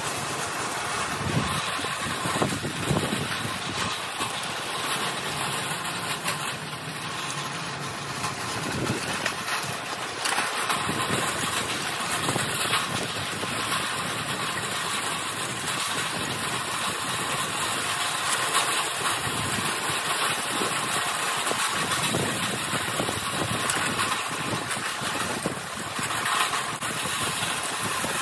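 Steady rolling noise of a power wheelchair and the red metal-mesh wagon it tows moving along an asphalt street: wheels running on the pavement with the chair's motor hum.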